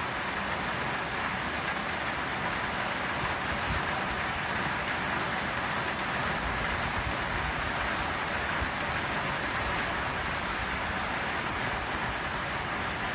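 Steady rainfall, an even hiss with no breaks, over a low rumble underneath.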